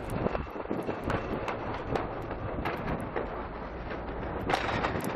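Steady rumbling vehicle noise with a rushing hiss, broken by scattered small clicks.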